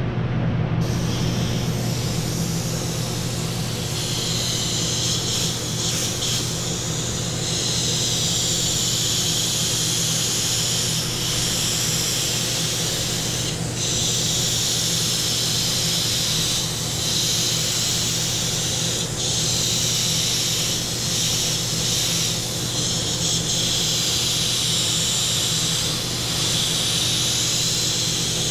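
Airbrush spraying solvent-based pearl paint: a steady high hiss of air and paint that swirls in tone as the brush moves, with brief breaks where the trigger is eased off. A steady low hum runs underneath.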